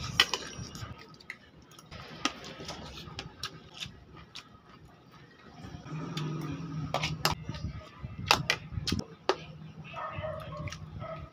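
Close-up chewing and lip-smacking of a person eating chicken and rice, with many short, sharp wet clicks. A low hummed murmur comes a little past the middle and again near the end.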